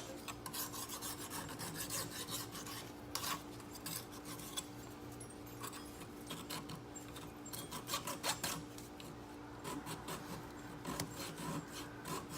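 Hand file scraping on the steel yoke of a drive shaft in repeated, uneven strokes, cleaning the edge where the universal joint's bearing cap seats.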